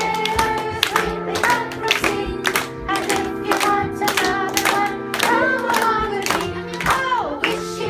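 Music with a steady clapping beat about twice a second and a sung melody.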